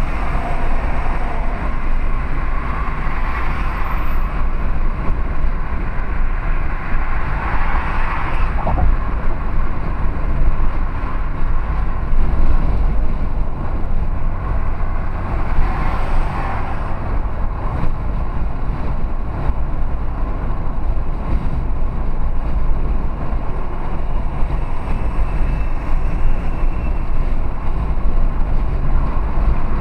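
Steady road and engine noise inside a car cruising at motorway speed: a deep low rumble under tyre hiss, with a few brief swells in the hiss.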